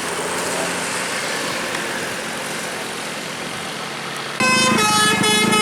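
Steady road and traffic noise, then about four seconds in a bus's multi-trumpet telolet horn cuts in loudly, several horn tones sounding together in short notes.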